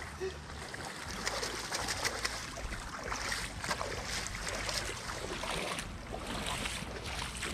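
Shallow water splashing and sloshing around wading feet and a cast net full of fish dragged through it, with many small irregular splashes and drips.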